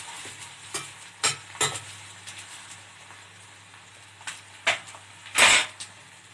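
Chopped onions with ginger, garlic and green chilli frying in mustard oil in a kadhai, a steady sizzle, while a spatula scrapes and knocks against the pan several times, the loudest and longest scrape near the end.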